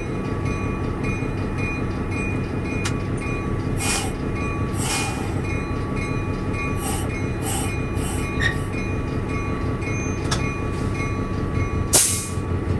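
Diesel locomotive running steadily, heard from inside the cab as the train rolls slowly, with a deep rumble throughout. A few sharp clicks and several short hissing bursts break in, the loudest near the end.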